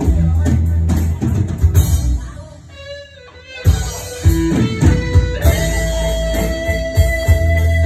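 Live band music: electric guitar over drums and bass, with no singing. It drops away for about a second roughly three seconds in, then comes back in with a long held note.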